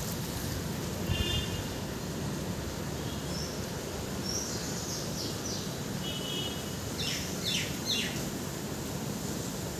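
Birds calling: scattered short chirps and quick falling notes, with three rapid down-slurred notes a little after halfway, over a steady outdoor background noise.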